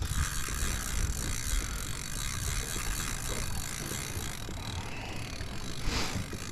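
Penn Fierce 3 spinning reel ticking rapidly and evenly under load from a hooked tarpon for the first four seconds or so, over a steady low rumble. A short knock comes near the end.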